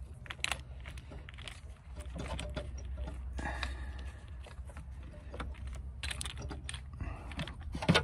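Scattered light clicks and rattles of small parts and a battery cable being handled under a plastic handle in a car's engine bay, with one sharper click near the end.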